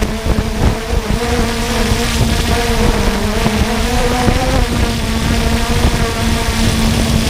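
3DR Solo quadcopter's motors and propellers buzzing steadily in flight, with a slight wavering in pitch, over low wind rumble on the microphone.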